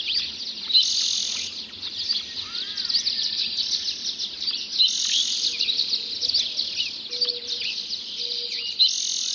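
A dense dawn chorus of many songbirds singing at once, all high-pitched whistles and trills overlapping, with a buzzy trill that comes back about every four seconds.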